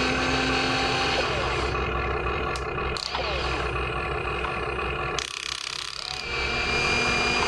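Electric motors and gearboxes of a HUINA radio-controlled excavator whining as the arm swings over and the bucket digs into sand. Several whines start and stop abruptly, some gliding in pitch, and the sound drops briefly about five seconds in.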